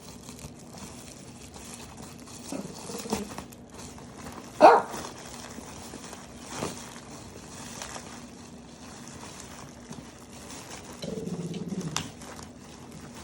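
Dog vocalizing: short low growls a few times, and one loud bark about four and a half seconds in.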